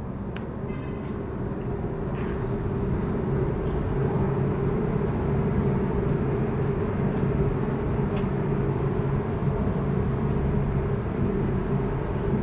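Steady low mechanical rumble with a hum, growing a little louder over the first few seconds, with a few faint clicks.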